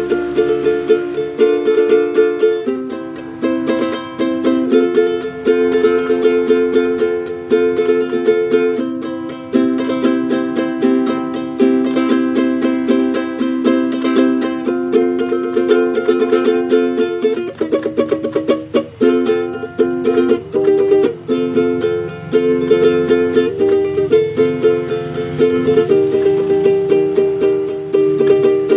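Inexpensive Palodin-brand ukulele strummed in chords, the chord changing every second or two, with a passage of rapid strumming about two-thirds of the way through.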